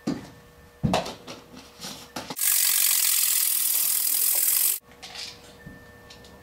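Dry cat-food kibble shaken hard in a small closed plastic container for about two and a half seconds, a dense, even rattle that starts and stops sharply, to coat it with fish oil. Before it come a few light clicks and knocks as the container and lid are handled.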